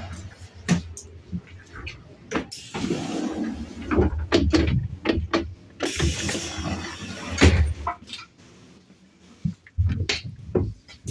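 Irregular knocks, bumps and clicks of someone moving through a passenger train's vestibule and corridor, over a low rumble. A short hissing rush comes about six seconds in.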